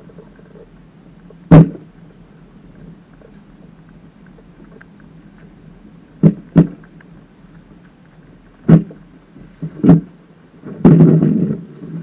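Loud, sharp knocks and bumps carried through a small sailing dinghy's hull as it goes down a slipway into the water: single knocks a few seconds apart, then about a second of rougher rumbling near the end.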